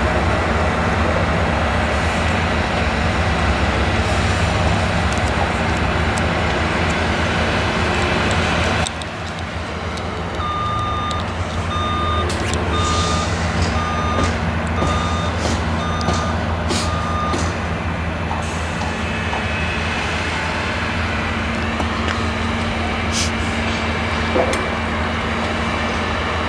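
New Holland CX combine harvester running under load while harvesting maize with an eight-row Geringhoff corn header: a steady low engine drone with scattered clicks and cracks. The level drops a little about nine seconds in, and shortly after a reversing alarm sounds, about eight evenly spaced beeps a little over one a second.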